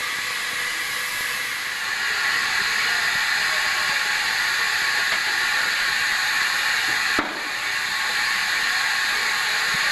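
Steam tank locomotive hissing steadily as steam escapes, a little louder about two seconds in, with a brief click and dip about seven seconds in.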